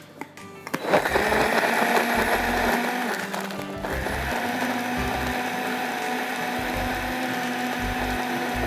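Countertop blender switched on about a second in and running steadily, blending bananas, dates, milk and ice into a shake.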